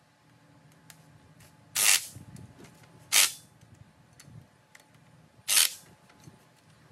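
Cordless drill run in three short bursts, about two seconds in, a second and a half later and again near the end, driving fasteners on the rear axle assembly, with faint clicks of handling between the bursts.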